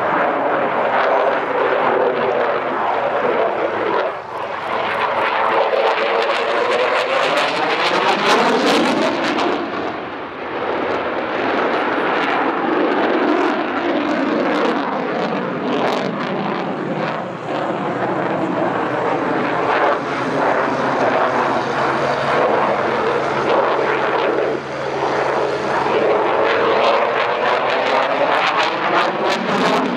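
Eurofighter Typhoon's twin EJ200 turbofan engines running hard through a flying display, a loud, continuous jet noise with sweeping tones that rise and fall as the aircraft moves across the sky. Near the end the afterburners are lit.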